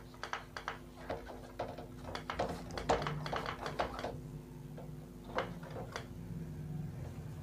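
Felt whiteboard eraser wiping marker off a whiteboard: a quick run of rubbing strokes for about four seconds, then a couple more strokes a little later.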